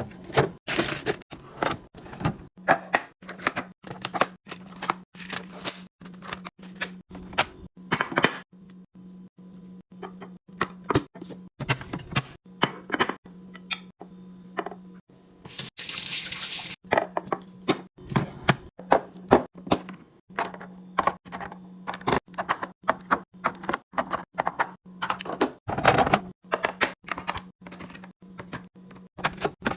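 Plastic and glass containers, lids and drawers clicking and knocking as a refrigerator is restocked, with a short pour of liquid about halfway through. A steady low hum runs underneath.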